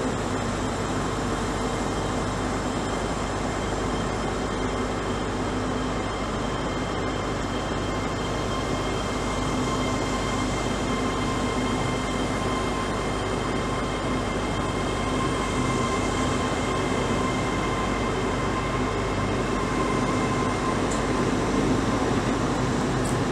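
Hitachi Class 800 electric multiple-unit train moving slowly along the platform: steady whining tones over the rumble of its wheels and running gear, growing a little louder near the end.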